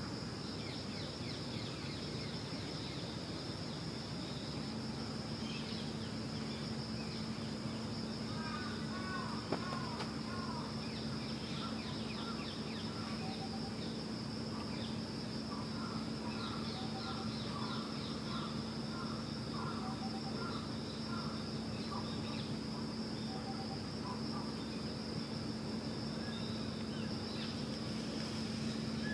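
Steady ambient background noise with a constant high whine and a low hum. Through the middle a run of short, repeated bird-like chirps sounds, with a single sharp click among them.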